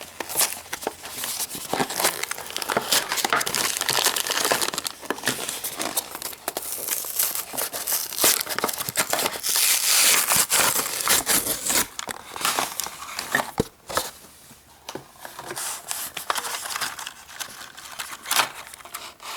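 A Beyblade toy's retail box and its packaging being opened by hand: continuous crinkling, rustling and tearing with many small clicks, busiest in the middle and quieter near the end.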